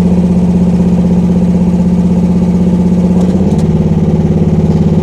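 Gasoline engine of a Rippa R10 mini excavator running steadily while its hydraulics swing the boom side to side. The steady tone changes slightly about three and a half seconds in.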